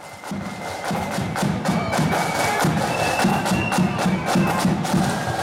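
Marching flute band playing a tune: a high flute melody over a steady beat of snare and bass drums. The sound fades in over the first second.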